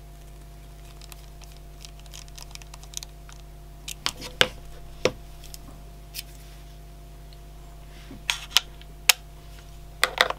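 Scattered sharp little clicks and light scraping from a Jakemy 8168 precision screwdriver and its aluminium bit case being handled. Soft scratches come first, then clicks about four seconds in, a few more near eight to nine seconds, and a quick cluster near the end. A faint steady hum runs underneath.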